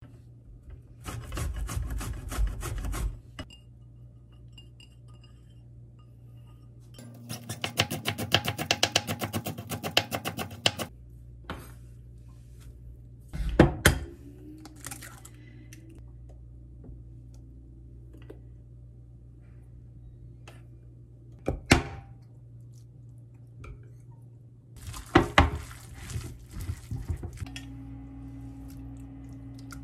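Food prep: zucchini scraped over a plastic grater into a bowl in quick strokes, then a longer run of fast rhythmic strokes a few seconds later. Scattered knocks and clinks of bowls and utensils follow. A steady hum sets in near the end.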